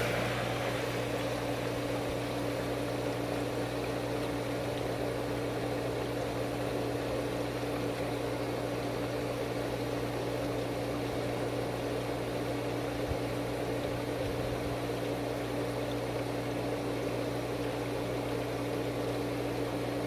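Swimming-pool pump motor running steadily at full speed, a constant hum.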